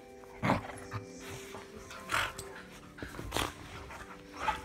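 A dog making several short, sharp vocal sounds, about a second apart.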